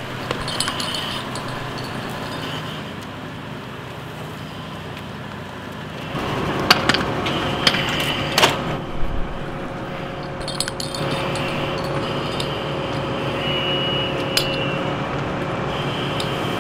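Fire engine engine and pump running steadily, growing louder about six seconds in, with a few sharp metallic clicks and clanks of hose couplings being worked on the pump panel.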